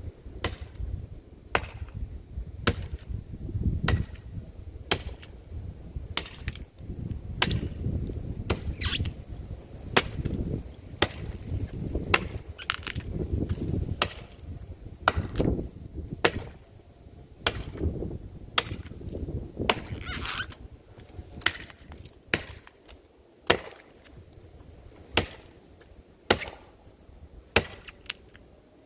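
Axe chopping into the trunk of a dead pine tree: a steady run of sharp strikes, roughly one a second.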